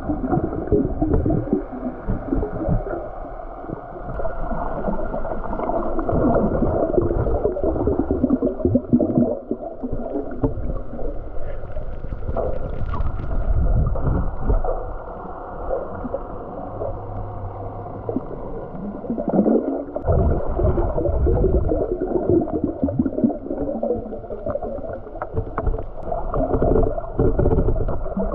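Muffled underwater noise picked up by a camera below the surface: water gurgling and rushing past the housing with a low rumble, rising and falling in level.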